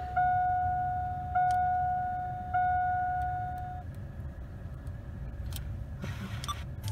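Electronic warning chime in the cabin of a 2001 GMC Sierra: three steady single-pitch dings about 1.2 seconds apart, each fading out, ending about four seconds in. A few faint clicks of the aftermarket Sony radio's buttons being pressed follow.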